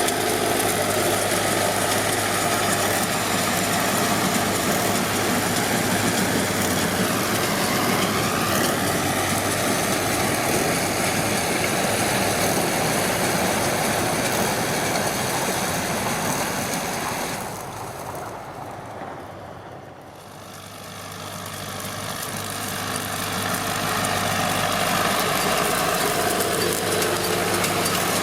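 John Deere 5720 tractor's diesel engine running steadily while pulling a Feraboli round baler through straw. The noise fades down briefly about two-thirds of the way in and then returns.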